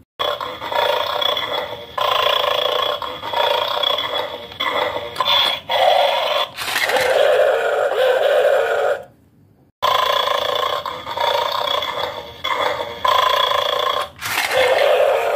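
Electronic dog sounds from a plastic bulldog toy game, played through its small built-in speaker, thin and tinny with nothing low. They run in two long stretches with a short break about nine seconds in.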